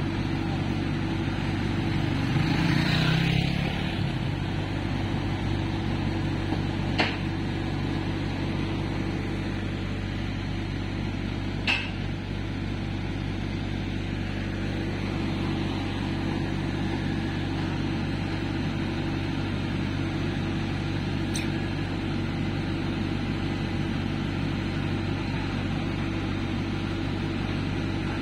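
Heavy diesel engine idling steadily. A motorcycle passes close by about two to three seconds in, and a few short clicks sound later.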